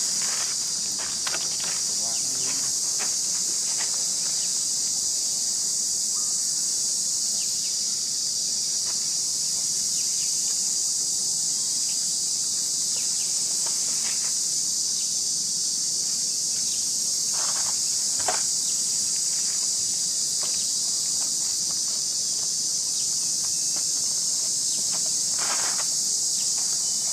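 Steady, high-pitched insect chorus buzzing without a break, with a few brief faint clicks and rustles.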